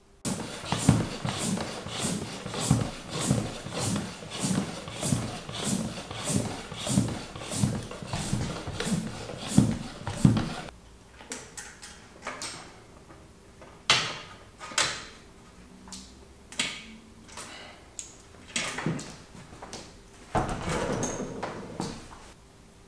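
A regular run of strokes, a little under two a second, for about the first ten seconds. Then scattered metallic knocks and clunks as a bicycle wheel is fitted into a frame's rear dropouts in a workstand and taken out again.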